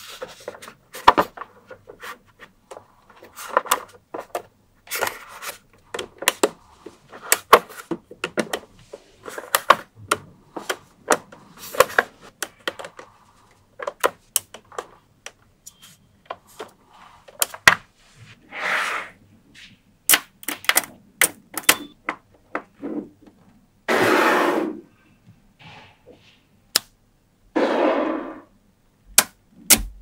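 Small magnetic metal balls clicking and snapping together as strips of them are pressed into place, in sharp irregular clicks. Several longer rustling stretches of about a second each come in the second half.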